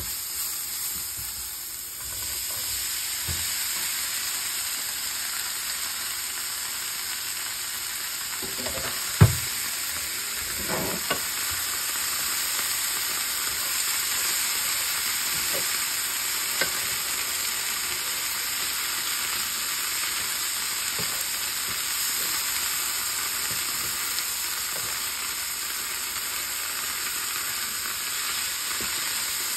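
Boiled cowpeas being stir-fried in a hot pan with a spatula: a steady sizzling hiss of frying, with a few sharp knocks against the pan, the loudest about nine seconds in.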